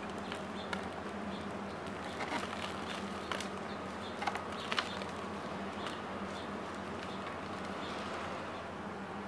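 Outdoor ambience with a steady low hum and faint bird calls. A few light taps and clicks come in the middle stretch, as potted plants are handled and pushed into the openings of a plastic pollinator house.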